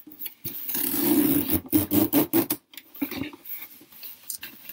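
A cardboard shipping box being opened by hand. There is a loud stretch of scraping and tearing from about half a second to two and a half seconds in, then lighter rustles and taps as the flaps are pulled open.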